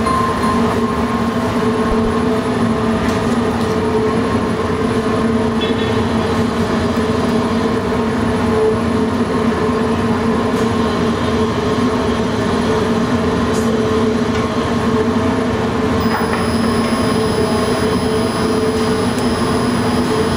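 Bakery machinery running: a loud, steady mechanical drone with a constant hum.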